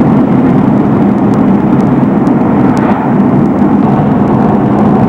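A moving car's steady road and engine noise, a loud, even low rumble.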